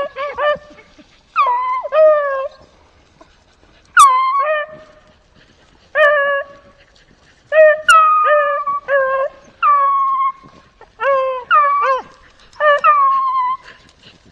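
Beagles baying: about ten drawn-out howling calls, each falling in pitch, with short pauses between them.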